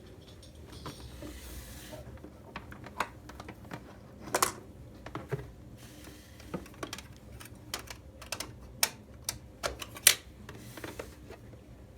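Irregular light clicks and taps, with a louder knock about four seconds in and another about ten seconds in.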